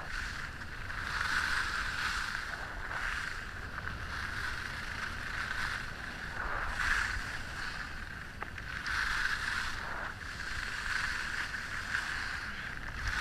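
Skis hissing and scraping over groomed snow, swelling and fading every second or two with each turn, over a low rumble of wind on the microphone.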